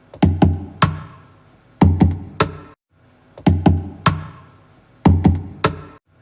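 Background music: a beat of heavy drum hits in groups of about three, each group about a second and a half apart with short breaks between them.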